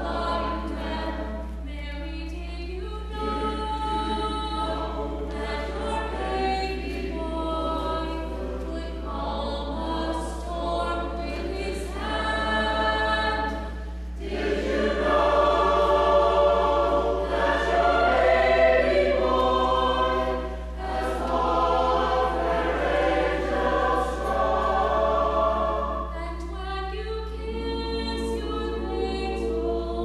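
Mixed choir of men's and women's voices singing a cappella, with no instruments. The singing grows louder about halfway through and eases back near the end, over a steady low hum.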